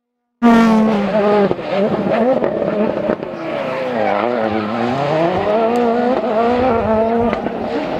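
Engine of a World Rally Car, a 1.6-litre turbocharged four-cylinder, cutting in suddenly about half a second in and revving hard, its pitch dropping and climbing again several times as the car lifts and accelerates on the rally stage.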